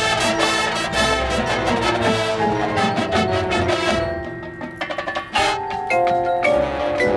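High school marching band playing its field show: a loud passage for the full band that eases off about four seconds in, leaving held chords with mallet percussion such as marimba and bells struck over them.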